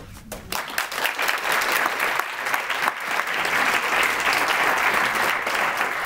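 Audience applauding, starting about half a second in and keeping on steadily.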